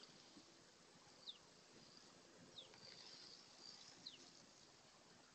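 Near silence, with three or four faint, short chirps falling in pitch, about one every second and a half, typical of a small bird calling.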